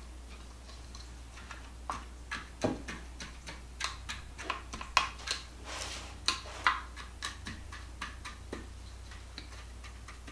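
A small plastic measuring cup pressing and patting graham cracker crumbs into a glass baking dish: irregular light taps and clicks, starting about a second and a half in and stopping about a second before the end.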